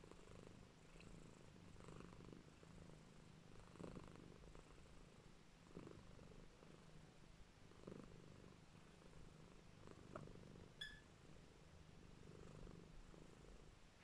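Domestic cat purring softly, a low steady purr that swells and eases about every two seconds with its breathing. A single brief high chirp cuts in near the end.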